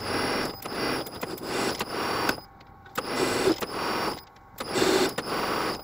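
Metal lathe turning an internal thread slowly with a hand-ground threading tool. The machine runs in three spells of one to two seconds, stopping briefly between them, with a steady high whine under each run.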